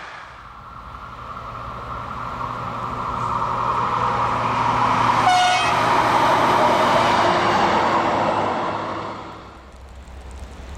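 A yellow rail service vehicle running past on the track, its sound swelling and then dropping away. It gives one short horn toot about five seconds in.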